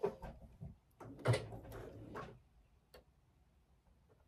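Handling sounds at a sewing machine: fabric shifting on the table with a few small clicks and knocks, the sharpest a single click near the end. The machine itself is not running.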